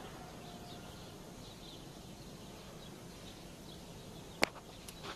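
Quiet outdoor background with faint bird chirps. About four and a half seconds in, one sharp crack breaks through, followed by a fainter click or two.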